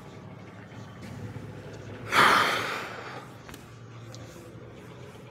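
A single loud, sharp huff of breath about two seconds in, fading over most of a second, against a low steady hum.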